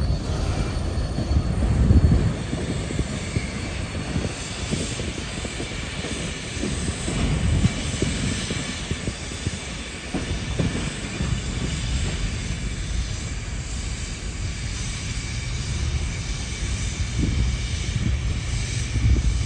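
Covered hopper cars of a freight grain train rolling along the track, their steel wheels making a steady rumble on the rails with a faint high wheel squeal over it.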